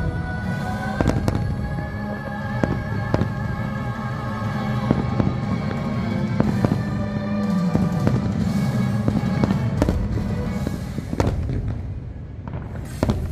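Fireworks going off in a string of sharp bangs a second or two apart, over the fireworks show's soundtrack music with long held notes.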